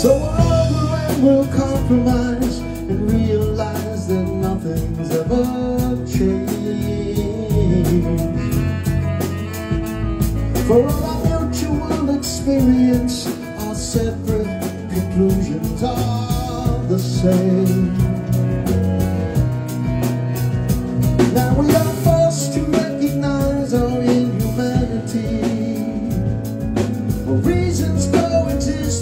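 A live band playing a rock ballad: electric guitar, keyboard, saxophone and drum kit, with a melody line carried over the top.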